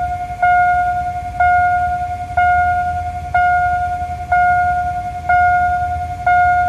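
Railway level-crossing warning bell ringing, one ringing tone struck about once a second and fading after each strike, seven strikes in all, over a low rumble.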